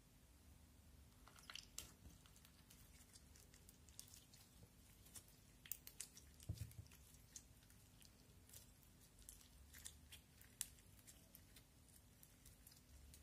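Red glitter slime mixed with tiny round beads being squeezed and stretched by hand, giving faint, scattered crisp clicks and crackles that start after about a second and a half. A soft low thump comes about six and a half seconds in.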